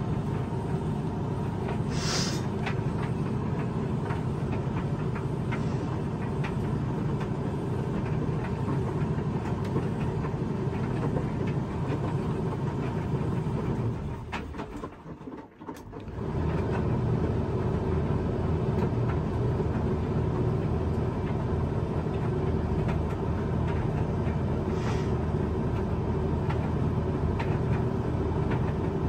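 Hoover machine tumble-drying a load of bathrobes on a sensor drying programme: a steady drum rumble with light clicks. About halfway through, the drum stops for a second or two and then starts turning again.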